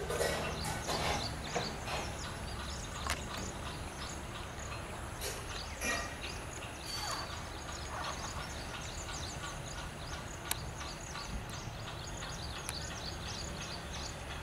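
House sparrows chirping rapidly and continuously over a steady low rumble, with a few sharp clicks.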